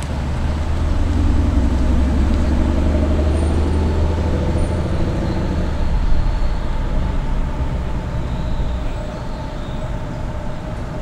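Ford Mustang's engine and exhaust as the car pulls away and drives off, with a deep rumble and revs climbing slightly. The sound fades into background street traffic after about six seconds.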